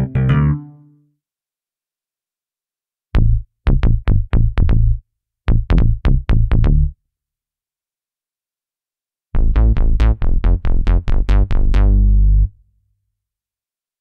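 Korg Opsix Native FM software synthesizer playing bass presets: short phrases of quick, clipped bass notes with a strong low end, split by silences. The last phrase is a longer, denser run of fast repeated notes.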